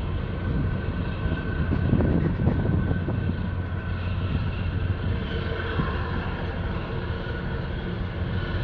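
Low, steady engine drone of a large container ship passing close by, over a rushing wash of noise that swells briefly about two seconds in.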